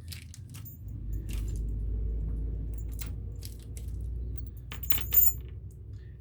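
Small metal parts clinking and clicking as they are handled: the new bolts from the ball-joint kit. The sharpest clink comes about five seconds in.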